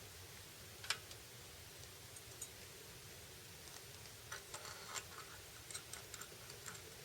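Faint scattered clicks and taps, one sharper click about a second in and a cluster of them between four and six seconds, over a low steady hum.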